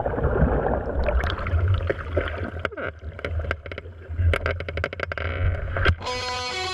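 Stand-up jet ski heard through a GoPro's waterproof housing on its nose: a muffled low rumble and gurgling of water as the nose runs submerged and comes back up, with many sharp clicks and pops of water striking the housing. Music with guitar starts abruptly about six seconds in.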